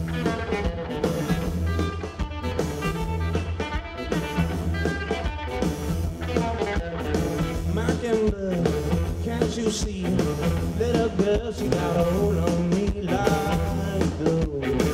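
Live rock band playing through a festival PA: electric guitar, drums and keyboards, with guitar lines bending up and down and no lyrics sung.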